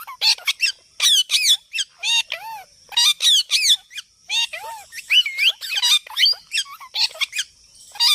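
Parrot giving a rapid series of short squawks and chattering calls, each sweeping up and down in pitch.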